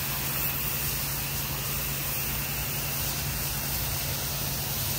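Pressure washer wand spraying a high-pressure jet of water onto wet concrete, a steady hiss over a steady low hum from the pressure washer's motor.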